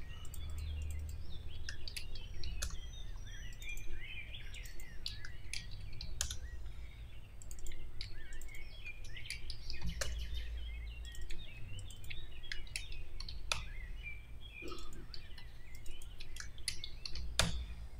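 Computer mouse clicks and keyboard keystrokes, scattered and irregular, as names are copied and pasted. Small birds chirp in the background throughout.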